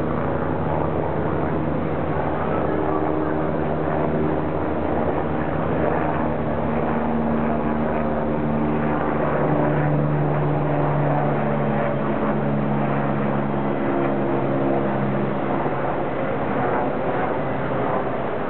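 A vehicle running by with a steady rumble and a motor whine that shifts in pitch in steps; the rumble fades after about ten seconds and the whine stops a few seconds later.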